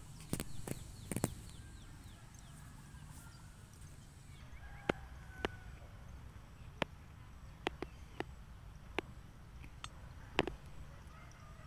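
A cow tearing off grass as she grazes: sharp, crisp rips roughly every half second to a second, most of them in the second half. Faint short chirps of birds or chickens in the background.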